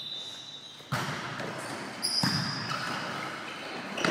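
A volleyball being served and played by hand in a rally, with three sharp hits: about a second in, near the middle, and near the end. A short high squeak comes just before the middle hit.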